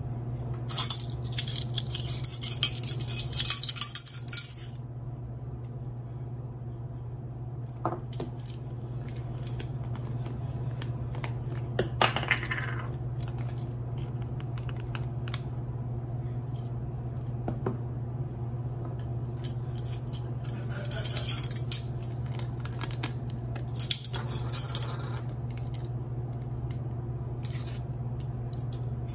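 Stainless-steel measuring spoons on a ring jangling and clinking against a ceramic bowl and spice jars: a long rattly jangle near the start, a few single clicks, then two more short jangles later on. A steady low hum sits underneath.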